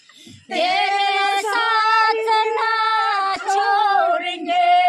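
A woman singing long held notes of a melody, after a brief break just before half a second in.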